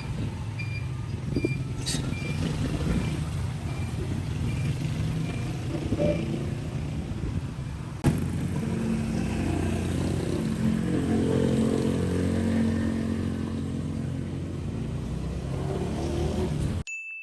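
A motor vehicle running with a steady low rumble, and a faint beep repeating about every two-thirds of a second for the first few seconds. The sound cuts sharply about eight seconds in, then carries on with a steadier engine hum.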